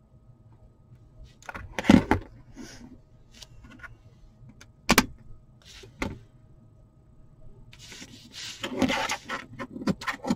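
A few sharp knocks of things handled on a cutting mat near two, five and six seconds in, then from about eight seconds in scissors rapidly snipping notches into felt wrapped around an egg-shaped cookie base.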